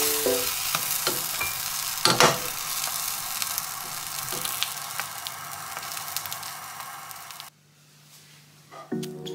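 A quesadilla sizzles steadily as it fries in a pan, with the spatula scraping against the pan now and then. The sizzle cuts off suddenly near the end.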